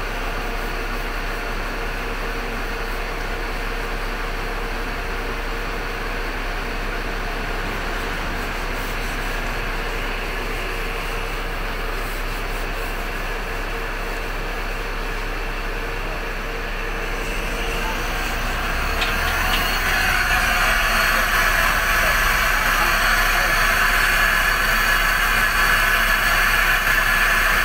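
Steady mechanical running noise with a faint steady tone under it, growing louder and brighter about two-thirds of the way through.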